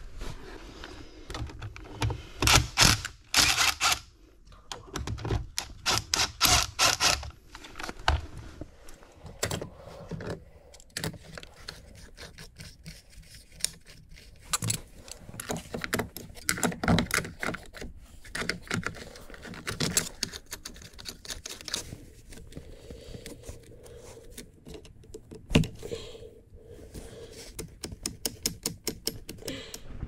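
Screwdriver work on a geothermal flow center's fittings: several runs of rapid clicks, with scattered scrapes and knocks between.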